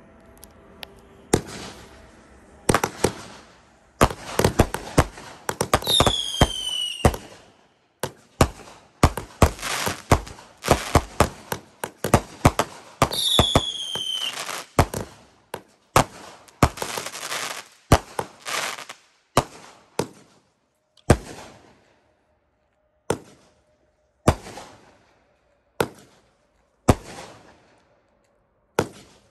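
Consumer firework cake (500 g / 200 g aerial cakes) firing: a rapid volley of shots and bursts, with two falling whistles among them, then slowing to single shots about a second apart near the end.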